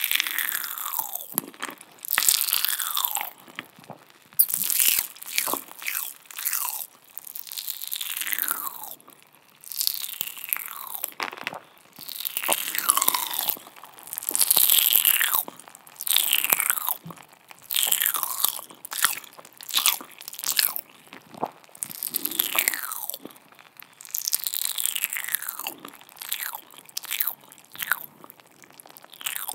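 Close-miked ASMR mouth sounds: wet lip and tongue smacks and sucking noises in quick bursts about every second, many of them sliding down in pitch.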